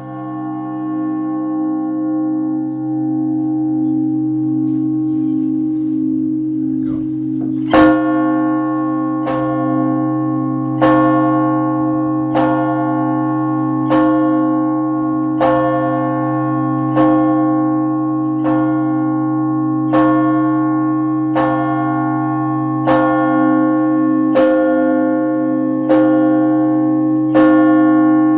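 Russian Orthodox church bells ringing: a sustained bell tone hangs at first, then about eight seconds in a bell begins to be struck steadily, roughly once every second and a half, each strike ringing on into the next over a low steady hum.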